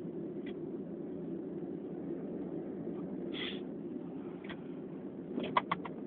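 Quiet pause in a sneezing fit: a steady low background hum, with one short breathy sniff about halfway through and a few faint clicks near the end.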